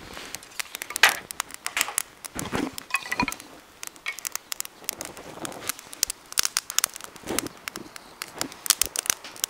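Newly lit kindling fire of thin square-cut scrap-wood sticks crackling and popping irregularly, with a few louder snaps and knocks as the sticks are shifted by hand.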